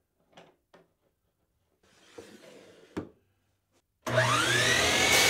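Hitachi miter saw switched on about four seconds in, its motor whining up to speed with a steady hum. Before that, a few light wooden knocks and a click as the board is handled.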